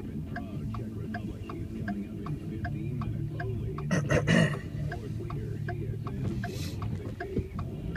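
Car turn-signal indicator clicking steadily, about two and a half clicks a second, over continuous low road and engine noise. About four seconds in, a brief louder rushing noise cuts across it.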